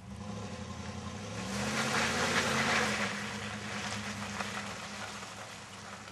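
Chevrolet Silverado pickup's engine revving hard as the truck drives through a mud hole, with the tyres churning in the mud. The engine comes up sharply at the start, climbs in pitch and loudness to a peak about two and a half seconds in, then eases off.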